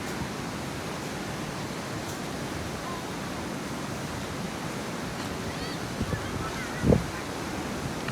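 A steady rushing outdoor noise with no pitch, and a dull low thump about seven seconds in.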